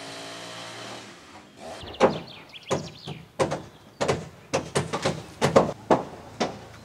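Carpentry on timber: a steady pitched machine tone for the first second and a half, then a run of sharp blows on wood, roughly two a second.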